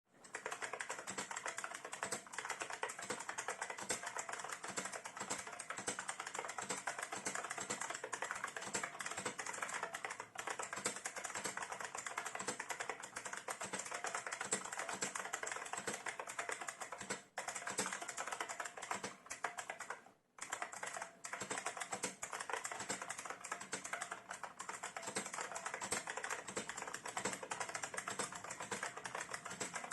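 IBM Model M keyboard (part 52G9658, 1993) typed on fast and continuously, its buckling-spring keys clacking in a dense run, with brief pauses about 17 and 20 seconds in.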